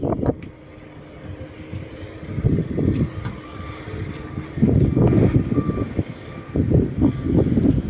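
A vehicle's reversing alarm beeping repeatedly, short evenly spaced beeps for a few seconds starting a little before the middle, over the low hum of a running engine and rough rumbling that comes and goes.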